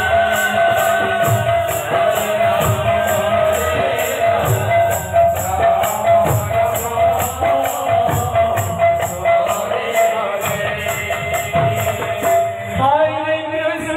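Kirtan ensemble music: small hand cymbals clash in a fast, even rhythm over drum beats and a steadily held melodic tone. A singer comes in near the end.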